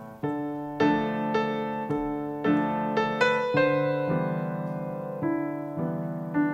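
Stage piano played solo, slow single notes and chords struck about every half second, with one chord held for a second or so in the middle before the pattern resumes.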